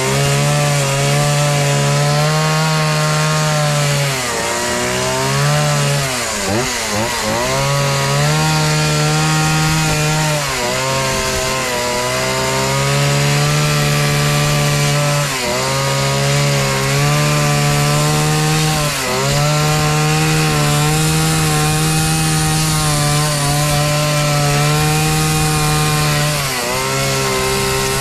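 Small two-stroke carving chainsaw running at high revs as its chain cuts into a wood slab, carving detail into a relief tree. The throttle dips briefly about half a dozen times, most deeply about six seconds in, then the saw comes back up to speed.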